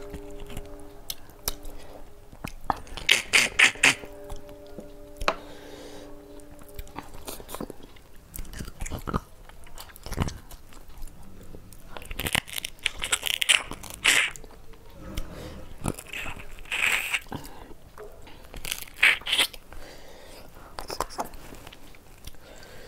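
A person chewing and crunching food close to the microphone, with clusters of crisp crunchy bites a few seconds apart between quieter chewing.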